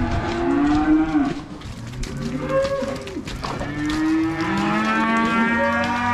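Several weaned calves bawling, their calls overlapping, with one long drawn-out moo from about four seconds in.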